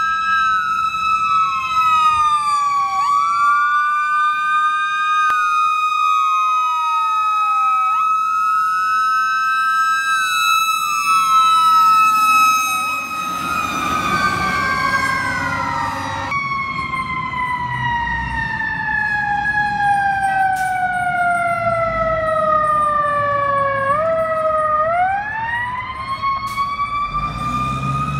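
Fire truck sirens: one holds a steady high pitch while another repeatedly falls and climbs back up, then a single long, slow fall in pitch winds back up near the end. The engine of a passing tower ladder truck rumbles louder in the middle.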